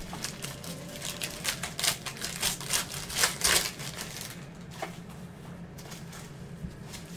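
Foil trading-card pack wrappers being ripped open and crumpled by gloved hands: a quick run of sharp crinkling tears, loudest about three and a half seconds in, then only light handling of the card stack.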